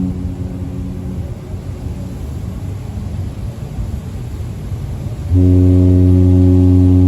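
Deep cruise ship horn blast fading out in the first second, a few seconds of low rumbling background, then another long, loud horn blast starting about five seconds in, as the ships sound their horns back and forth.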